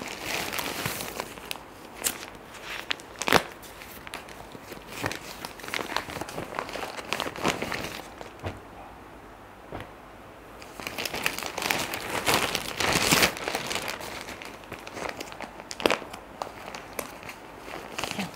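Plastic packaging crinkling and folded fabric rustling as printed suit pieces are handled and stacked, in irregular bursts, with a couple of sharp clicks, the loudest about three seconds in.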